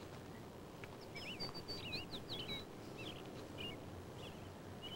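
Birds chirping: a quick run of high, twittering calls about a second in, then a few single chirps, over a faint steady background hum.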